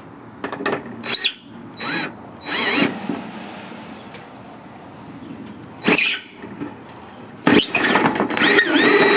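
Cordless drill driving self-piercing gutter screws through aluminium gutter hangers into the fascia. Several short bursts come first, then a longer run of a couple of seconds near the end, the motor whine rising and falling as the screw bites.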